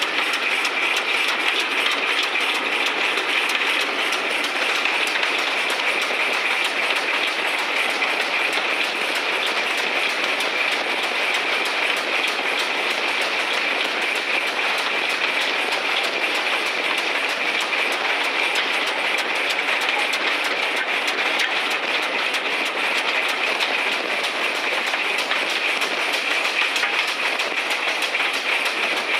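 Steam-hauled train running along the line, heard from right beside the GWR pannier tank locomotive: a steady running noise with the clatter of wheels over the rail joints.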